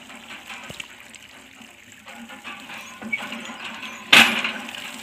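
Hand pump being worked, with water running from the spout and a loud metallic clank from the pump handle about four seconds in.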